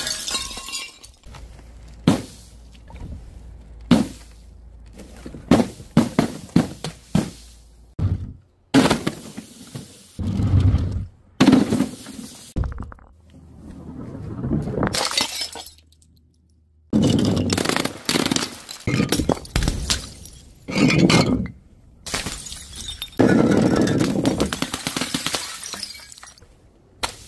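A string of separate smashes: glass jars and paint-filled objects breaking on a hard tiled surface, with glass shattering and clinking. Several longer crashes of a second or two stand among many short sharp impacts.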